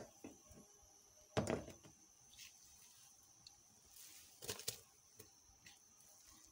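Faint kitchen handling sounds at a pot of boiling milk: a soft thump, then a few short clicks and knocks about four seconds in, as shredded carrots are tipped into the milk.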